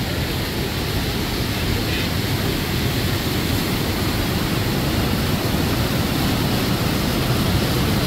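Steady rushing of white water from the Manavgat River and its wide, low waterfall, growing slightly louder toward the end.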